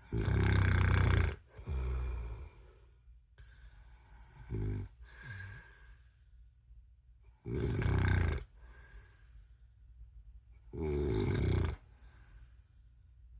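A man snoring heavily. Loud snores with a deep rumble come about every three to four seconds, with softer breaths between them.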